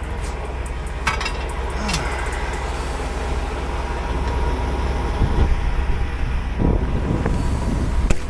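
Semi truck's diesel engine running with a steady low rumble, with a few sharp clicks and clunks over it.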